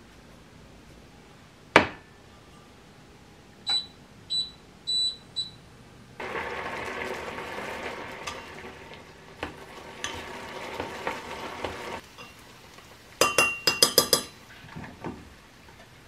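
Stainless steel kitchenware: one sharp knock, then a few short ringing metal clinks. From about six seconds in, rice sizzles as it is fried in butter in a steel pot and stirred with a wooden spoon, for about six seconds. Near the end comes a quick run of sharp metal clinks.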